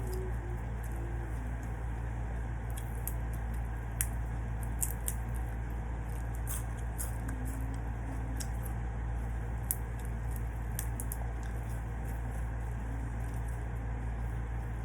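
Close-miked eating sounds: scattered sharp clicks and crunches of chewing, bunched through the middle, over a steady low hum.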